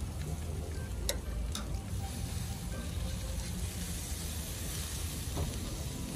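Steaks, pork, fish and sweet potatoes sizzling on a gas grill, with a steady low rumble underneath. Metal tongs click sharply twice, about a second and a second and a half in, as the food is handled.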